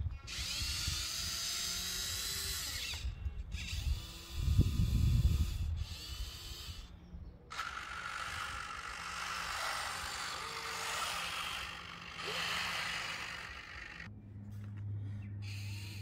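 Electric motors of a radio-controlled Huina wheel loader whining in several spells with short pauses, their pitch gliding up and down as the lift arm raises and tilts the bucket. A loud low rumbling burst comes about four to five seconds in, and a steady low hum takes over near the end.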